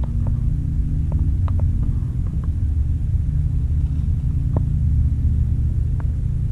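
Steady low rumble of wind buffeting the microphone, with scattered small clicks of pebbles and gravel knocking together as they are handled at the water's edge.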